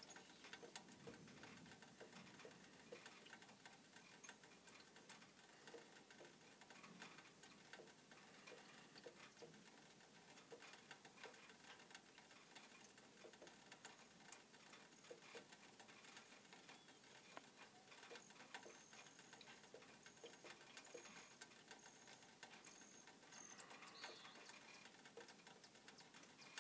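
Near silence: faint, irregular ticking and crackling, with a faint thin high tone for a few seconds in the second half.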